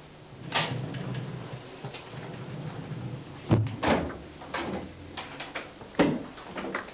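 A series of sharp knocks and thuds, irregularly spaced, the two loudest about halfway through and near the end, over a low steady hum.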